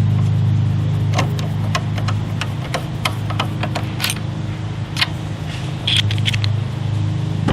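Irregular metallic clicks and clinks of a socket and other hand tools being handled and fitted onto the blade nut, over a steady low hum.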